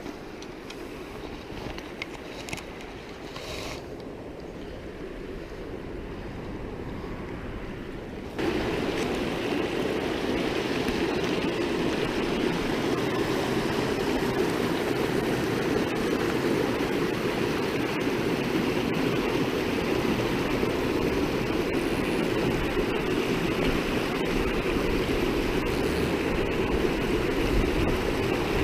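Rushing water of a small mountain creek, a steady hiss; about eight seconds in it becomes louder and fuller, as if closer to the current.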